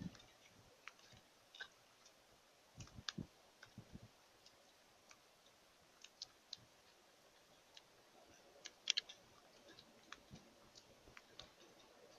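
Faint, scattered clicks and taps at irregular intervals, with a brief cluster of sharper clicks about nine seconds in.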